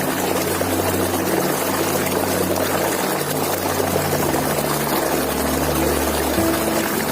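Waterfall rushing steadily, with low sustained droning tones underneath that shift to a lower pitch about four seconds in.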